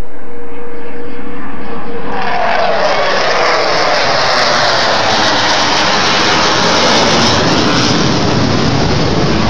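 F/A-18 fighter jet's twin jet engines passing overhead: loud jet noise swells about two seconds in, with a falling pitch sweep as the jet goes by, then a broad, loud rumble carries on.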